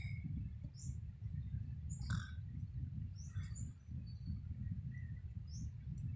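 Birds chirping, with a few short, high calls scattered through, over a steady low rumble.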